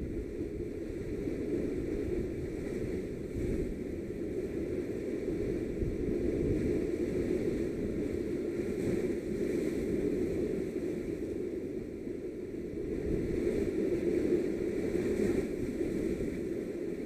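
Sea surf washing and foaming against rocks: a steady rush of water that swells and eases with the waves.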